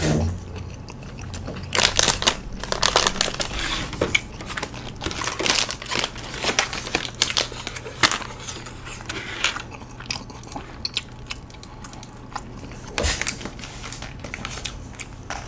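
Thin disposable plastic gloves crinkling and rustling in irregular bursts as they are handled and pulled onto the hands.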